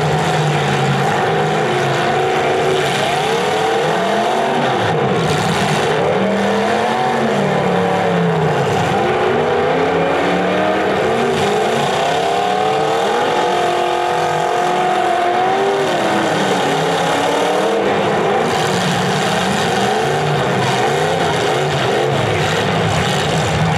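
Several demolition derby cars' engines revving up and down at once, their pitches rising and falling and overlapping, loudest and busiest in the middle of the stretch.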